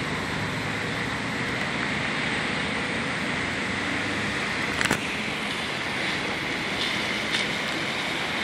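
2008 Mazda 3's 1.6-litre four-cylinder engine idling steadily, under a steady outdoor hiss, with a single sharp click about five seconds in.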